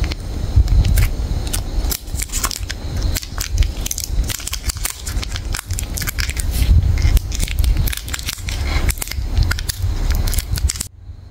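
Plastic chocolate-bar wrapper and its inner foil crinkling and crackling as they are peeled open and unfolded from a Cadbury Dairy Milk bar, in many quick crackles. The crackling stops suddenly near the end.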